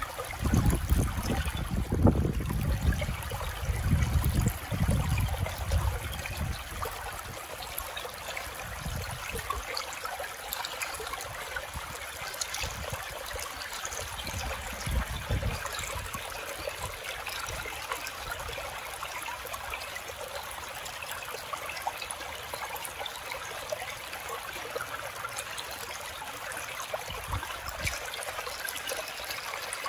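Shallow Ganga river running over and around stones, heard up close: a steady rush and babble of water. Low rumbles come through over the first several seconds and again briefly around the middle.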